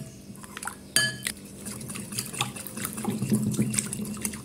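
Metal spoon stirring tomato paste into water in a glass bowl, the liquid sloshing, with many small clinks of the spoon on the glass and one sharper ringing clink about a second in.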